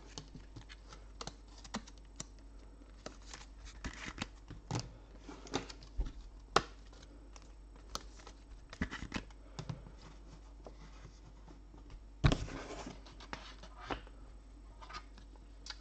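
Light handling noises of trading cards and plastic card holders: scattered small clicks, taps and scratches, with one short sliding scrape about twelve seconds in.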